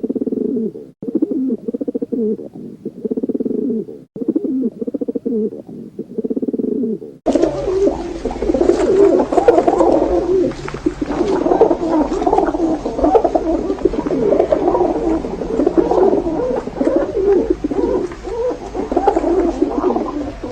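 Pigeons cooing: first a single bird's repeated coos, then, after an abrupt change about seven seconds in, many birds cooing together over a low rumble.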